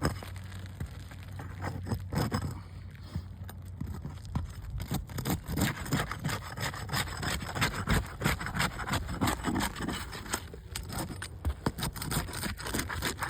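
Asphalt roof shingles scraped and rubbed as they are worked loose during a repairability test, a rapid, uneven run of scraping strokes that is busiest through the middle seconds. The shingles are worn and tearing.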